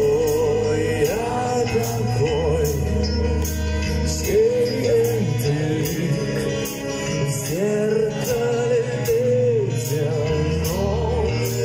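Live rock band playing: a male singer holds wavering notes with vibrato over electric guitars, bass and drums, with cymbals struck at a steady beat.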